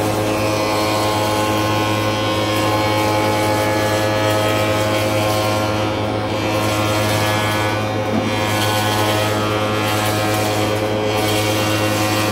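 Spindle moulder running with its dust extractor: a loud, steady machine drone and hum, with the rushing noise of timber being fed past the cutter.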